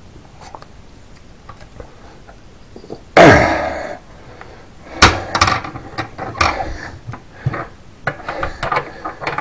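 A loud, brief sound falling in pitch about three seconds in, then the cast-iron door of a coal-burning stove clanging shut about two seconds later, followed by a run of metallic clanks and knocks as its latch handle is worked.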